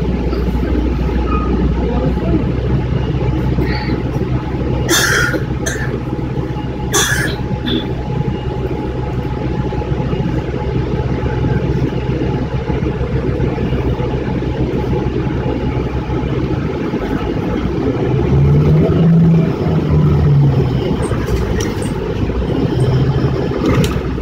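City bus engine heard from inside the cabin, idling at a stop with a steady low hum, with two short hisses about five and seven seconds in. About eighteen seconds in the engine revs up in rising surges as the bus pulls away.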